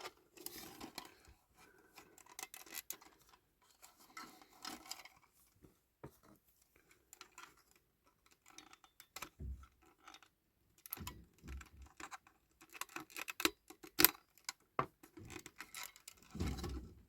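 Small parts of a 1/18 scale diecast Jaguar XJ220 model being handled while it is taken apart: scattered light clicks, taps and scrapes of metal and plastic, busier in the second half, with a couple of soft knocks.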